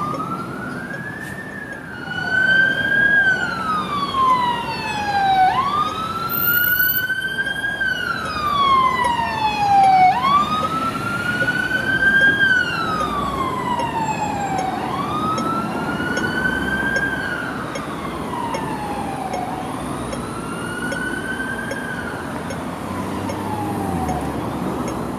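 Hong Kong Fire Services Department ambulance and paramedic motorcycle sirens in a slow wail. Each cycle rises quickly and falls slowly, repeating about every four and a half seconds. Two wails overlap in the first few seconds, and the siren grows somewhat fainter in the second half over a bed of traffic noise.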